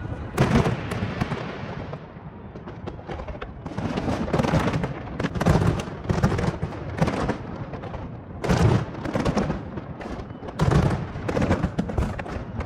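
Aerial fireworks going off: a series of loud booms, some in quick clusters, with crackling between them.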